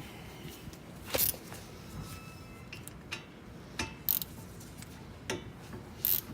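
A handful of sharp metallic clinks and ticks, a few with a short ring, spread a second or so apart: hand tools knocking against the 14 mm caliper bracket bolts as a wrench is fitted.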